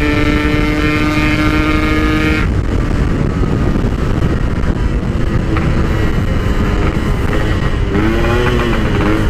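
Yamaha RX-King two-stroke single through a Packing Power PK1 exhaust, riding at steady revs. After about two and a half seconds the engine tone drops away under a loud rushing noise, and near the end the engine revs up and back down once.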